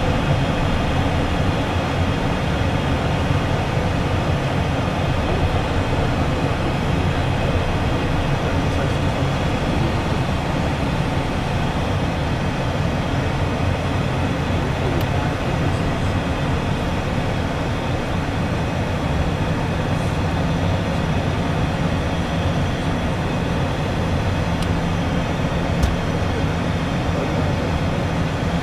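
Steady cockpit noise of an Embraer Phenom 100 twin-turbofan jet descending on approach to land: the rush of air over the airframe and the low hum of its engines.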